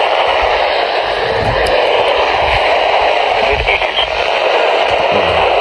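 Weather radio receiver hissing with heavy static, with a broadcast voice faint beneath the noise.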